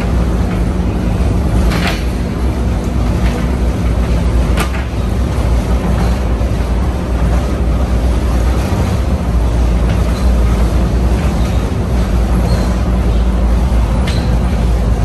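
Seattle monorail train running, heard from inside the car: a steady low rumble with a hum and a few faint clicks.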